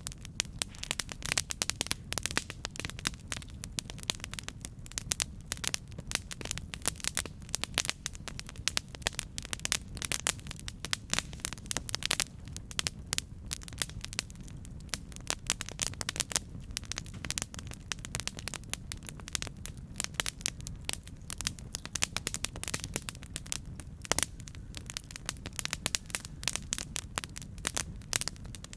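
Campfire burning with a steady low rumble and dense, irregular crackles and pops from the wood.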